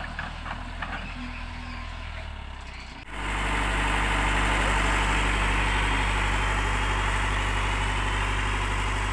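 Bulldozer's diesel engine running steadily. About three seconds in it suddenly becomes much louder and stays steady at that level.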